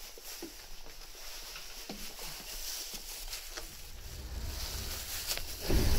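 Inside a Tobu 9000 series train: scattered light clicks and rustles, then a low rumble building from about four seconds in, and a loud low thump near the end.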